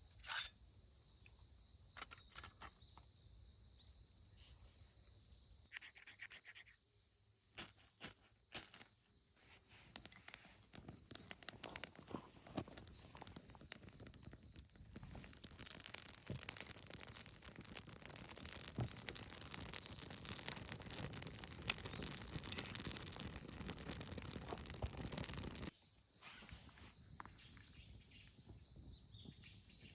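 Insects trilling steadily in the background. About a third of the way in, a dense scratching, rustling noise starts up, grows louder, then stops suddenly near the end.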